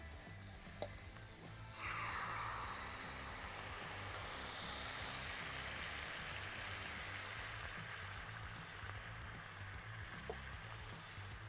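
Stock poured into a hot roasting tray of caramelised onions and garlic on the hob, deglazing it. A faint sizzle at first turns suddenly into loud sizzling about two seconds in, as the stock hits the hot pan, then slowly dies down.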